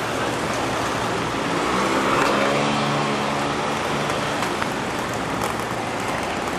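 City street traffic noise: a steady wash of passing vehicles, with a low engine hum swelling and fading in the middle.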